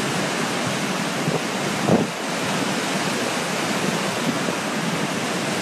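Floodwater of the Rhône rushing and churning in heavy turbulence below the Vallabrègues dam: a steady, dense rushing noise, with a brief louder bump about two seconds in.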